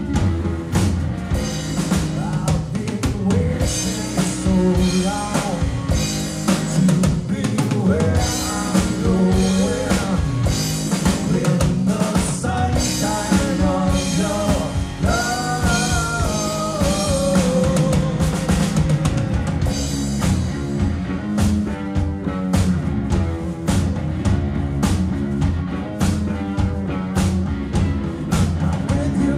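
Live rock band playing: electric guitar, bass guitar and drum kit, with a lead vocal over it and steady drum strokes.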